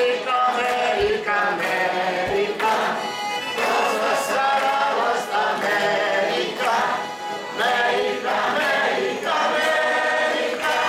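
A large crowd of men and women singing a song together, some of them clapping along.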